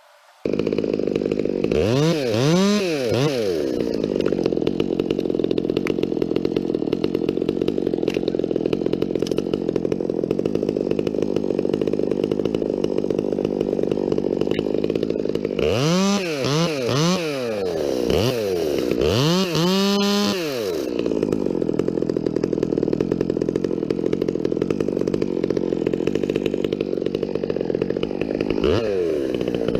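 Gas chainsaw running at high speed, its engine pitch dipping and rising quickly several times: near the start, in a longer stretch past the middle, and again near the end.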